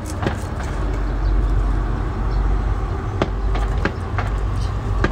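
A steady low rumble throughout, with a few short sharp clicks as raw chili-coated octopus is bitten into and handled.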